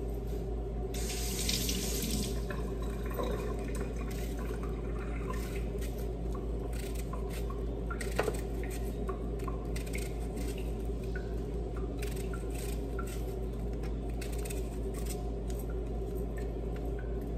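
A knife cutting through an onion held in the hand, making scattered small crisp clicks over a steady low hum. A brief hissing rustle comes about a second in.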